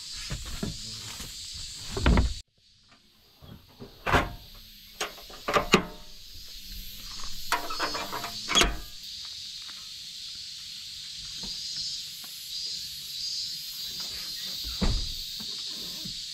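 A series of separate clunks and knocks as the door of a handmade camper shell on a Honda Acty kei truck is shut and the tailgate's metal side latch is worked by hand; the loudest knocks come about two seconds in and again near nine seconds.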